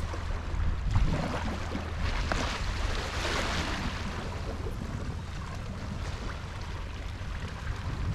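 Wind rumbling on the microphone over the wash of sea water, with a louder rush of water swelling about two to four seconds in.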